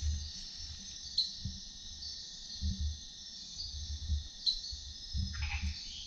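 Night-time rainforest insect chorus: a steady, high-pitched shrill trilling, with a few brief chirps and one short call falling in pitch near the end. Low rumbling bumps run underneath.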